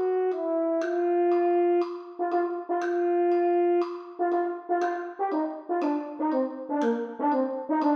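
Solo French horn playing an etude: two long held notes, then from about halfway a run of quick, short, detached notes in a dotted rhythm.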